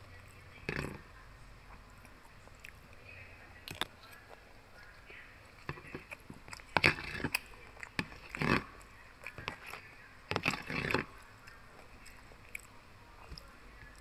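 Mouth sounds of eating: biting and chewing fried pork belly with rice, in irregular short bursts, with a metal spoon clicking and scraping against a plastic food container. The bursts come thickest in the middle stretch.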